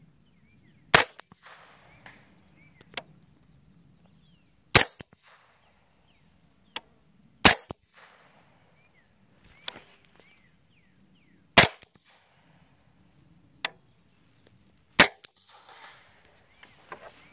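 Five suppressed rifle shots from a 300 Blackout AR-15 with an 8.5-inch barrel and a Silencerco Omega suppressor, fired a few seconds apart. Each shot is followed about two seconds later by a much fainter sharp sound.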